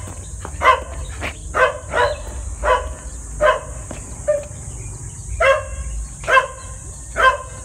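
A dog barking over and over, short sharp barks about once a second.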